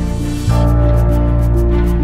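Background music: sustained chords over a strong bass and a quick, steady ticking beat, with a chord change about half a second in.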